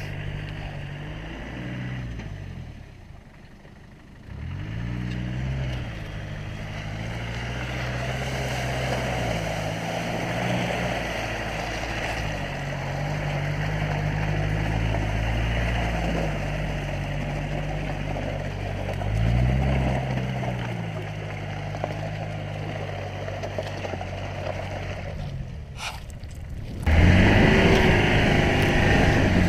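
Land Rover Discovery's 300Tdi 2.5-litre four-cylinder turbodiesel working under load off-road, its revs rising and falling several times, over a steady churning noise of tyres in mud. Near the end the sound changes abruptly to a louder engine with wind on the microphone.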